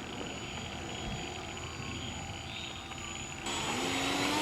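Electric motor and propeller of a radio-controlled Cessna 182 model floatplane spinning up about three and a half seconds in, with a rising whine that then holds steady.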